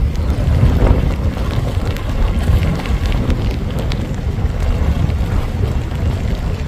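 Wind buffeting the microphone, a loud, uneven low rumble.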